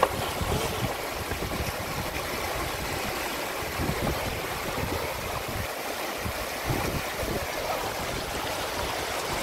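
River water rushing steadily over a shallow rocky rapid.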